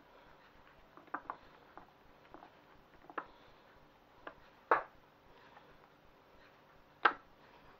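Drained, rinsed butter beans being dropped by hand into a bowl of breadcrumbs: a handful of soft, scattered taps and clicks, with two louder knocks about halfway through and near the end.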